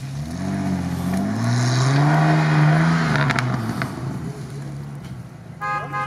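Off-road 4x4's engine revving under load, its pitch rising over the first two seconds or so and falling away after about three, with a few faint clicks in the middle.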